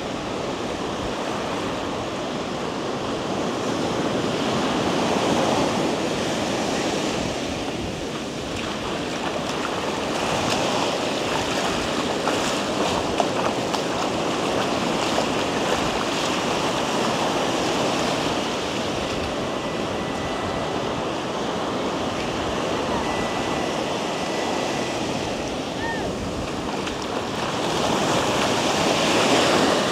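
Ocean surf breaking on a sandy beach: a continuous wash of waves that swells louder several times, most strongly near the end, with wind buffeting the microphone.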